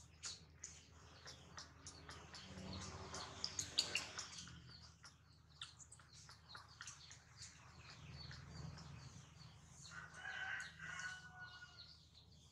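Faint animal calls: short high chirps and squeaks throughout, and one longer held call about ten seconds in.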